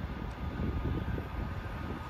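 Low, uneven rumble of railway station ambience, trains and wind. A faint steady whine comes in about halfway through.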